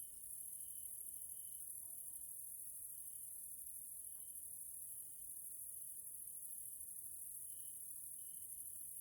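Evening chorus of grasshoppers stridulating: a continuous, very high-pitched shrill, with short, lower chirps from other insects coming and going irregularly.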